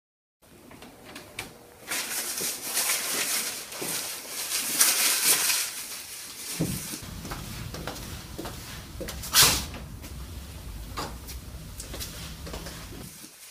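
Indoor hallway sound picked up by the camera's own microphone: hiss, then a low rumble with scattered footsteps and knocks on a tiled floor, one sharp click louder than the rest about nine seconds in.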